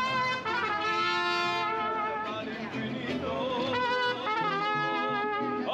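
Music led by trumpets, playing held notes with a slight vibrato that change pitch every second or so.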